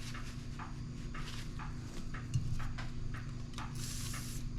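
A rusted metal hand tool being worked and rubbed in short, irregular scratchy strokes, then a can of WD-40 spray hissing near the end as penetrating oil goes onto the seized tool.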